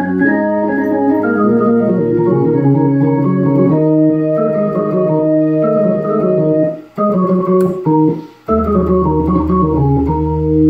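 Hammond organ being played: held chords with a moving melody line on top. The sound breaks off briefly twice, about seven and eight and a half seconds in, and a low bass note comes in under the chords after the second break.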